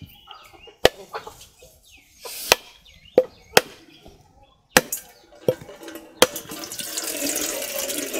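A whole coconut struck repeatedly with a curved blade to crack it open, about seven sharp knocks. Just after six seconds it splits and its coconut water pours and splashes into a steel bowl.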